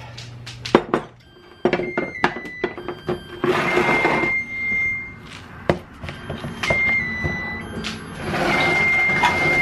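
Knocks and clicks of kitchen things being handled, and two spells of rough rubbing with a thin steady squeal, the second near the end as the plastic lid is worked off a canister of old-fashioned oats.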